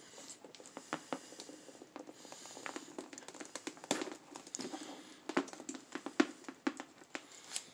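Small plastic clicks, taps and light rustling of a toy action figure and its plastic parts being handled, scattered irregularly.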